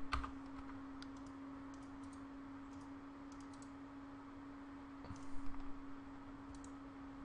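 Faint clicks of a computer mouse and keyboard over a steady low hum, with a short cluster of louder clicks about five seconds in.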